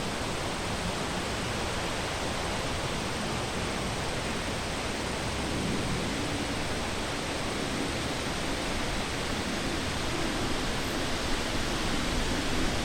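Wind blowing steadily through a forest, an even rushing noise that swells slightly near the end.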